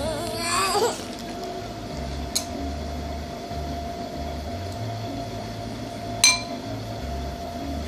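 Two sharp clinks of a spoon against a dish a few seconds apart, the second the louder, over a steady low hum. Near the start a short rising, wavering voice sound is heard.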